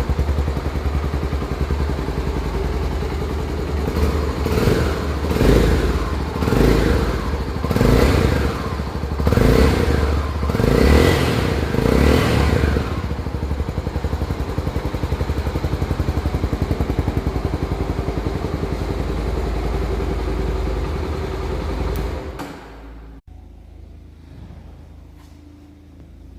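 Honda XR 250 Tornado's single-cylinder four-stroke engine idling, blipped up about seven times in quick throttle revs, then idling steadily again before it stops near the end.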